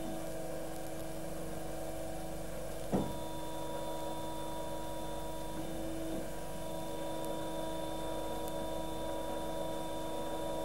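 Hydraulic power unit running steadily, a hum with a thin whine, while the lifting cylinder sits at its end position and the pump's oil flows back over the pressure relief valve. A short knock about three seconds in.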